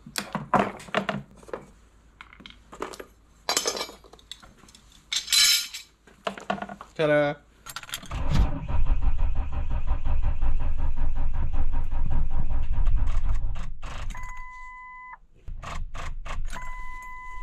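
A 2001 Ford Explorer Sport fails to start on a dead battery: for about six seconds the starter tries with a loud, rapid low chatter, then stops. Afterwards a steady electronic warning chime sounds twice. Before that, a screwdriver clicks and knocks while headrest bracket screws are taken out.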